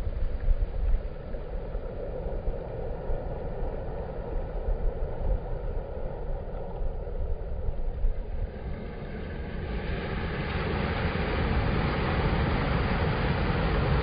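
Sea surf washing in over a rocky shore, with wind buffeting the microphone as a gusty low rumble. About ten seconds in, the hiss of the surf grows louder and steadier as a wave breaks.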